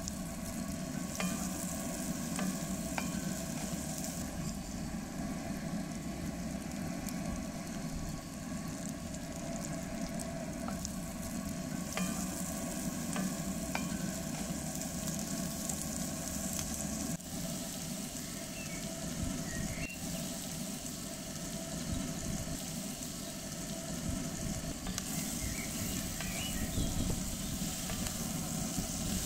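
Sliced onions, bell peppers and mushrooms sizzling steadily in hot oil in a cast-iron pan while being stirred with a wooden spatula, with a few light taps and scrapes of the spatula against the pan.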